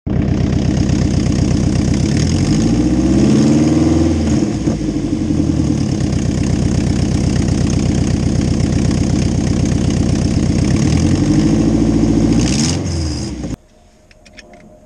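Mazda Miata's four-cylinder engine idling and blipped up in revs twice, each rev rising and falling back to idle; the car is being run after its new aluminium radiator was fitted. The engine sound cuts off abruptly near the end.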